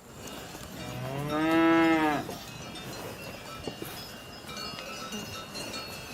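A cow mooing once, a drawn-out call of about a second that rises in pitch and falls away again. Afterwards faint bell tones ring on, like a cowbell.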